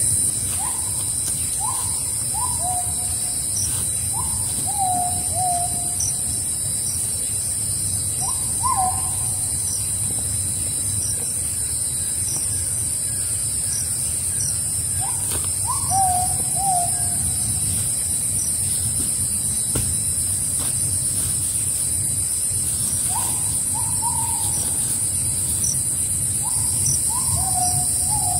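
Forest ambience: a bird calls in short groups of two to four hooting notes, the later notes lower, about six times, over a steady high-pitched hiss.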